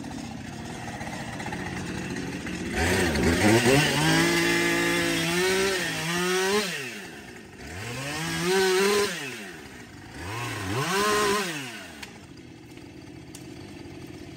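Small chainsaw running at idle and revving up three times as it cuts dead shrub stems at ground level, the pitch rising with each cut and falling back between them.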